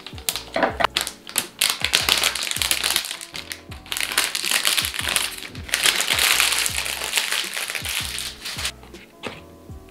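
Thin clear plastic sleeve crinkling as it is pulled off a new iPad, loudest a little past halfway and dying away near the end. Background music with a steady beat.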